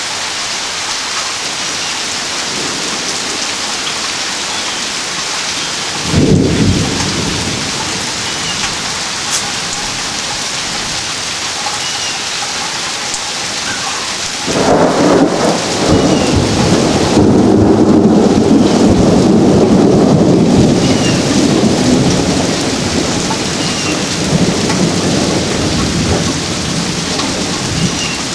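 Steady rain falling, with thunder: a sudden clap about six seconds in that dies away, and a longer rumble starting about halfway that builds and fades over roughly eight seconds.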